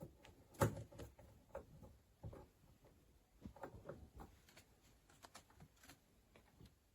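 Scattered light clicks and knocks of an object being handled, the loudest about half a second in.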